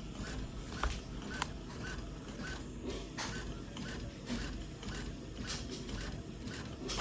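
Brother DCP-T310 inkjet printer printing a check-quality test page: its mechanism running steadily with irregular clicks and short repeated chirps, the printer working normally again.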